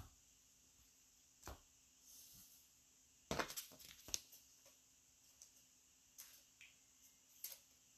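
Faint taps and clicks of trading cards being handled and set down on a tabletop, with a small cluster of them about three to four seconds in.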